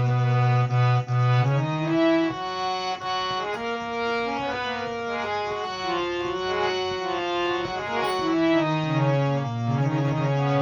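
Harmonium playing a wordless melodic passage of held reedy notes that climb step by step and then come back down, over a sustained low note.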